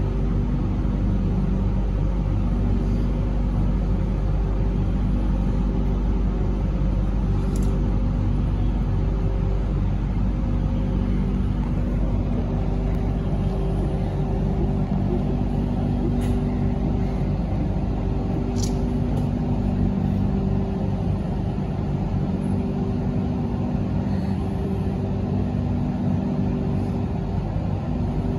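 Cabin noise aboard a Hong Kong Light Rail Comeng light rail vehicle: a steady rumble with a constant low hum from the car's equipment, and a few faint short ticks.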